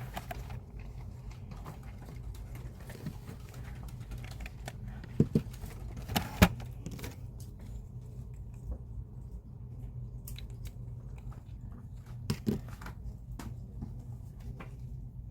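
Scattered small clicks and taps over a steady low hum, with a few sharper knocks, the loudest about six and a half seconds in.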